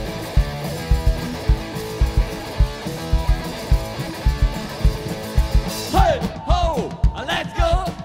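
Punk rock band playing live: electric guitar, bass and a fast, steady drum beat. About six seconds in, the sound cuts abruptly to a duller-sounding recording with drums and pitched sounds sweeping up and down.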